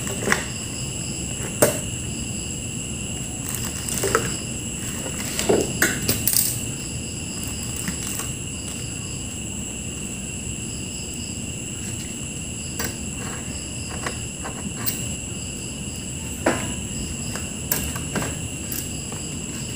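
Light clicks and knocks a few seconds apart from hands working on an opened LED TV's metal back chassis and cables, over a steady high-pitched insect chirring with a pulsing trill.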